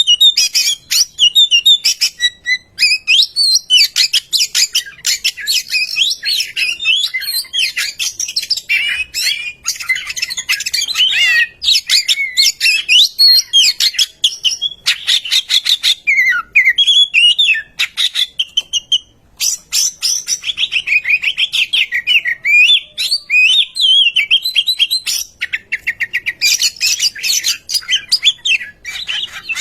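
Oriental magpie-robin singing loudly and without pause: fast, varied whistled phrases that glide up and down, broken now and then by quick runs of harsh rattling notes.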